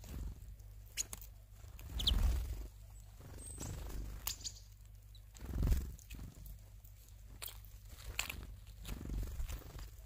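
Tits at a bird feeder: scattered sharp taps and clicks, with a short high chirp about two seconds in. Low thumps about two and five and a half seconds in.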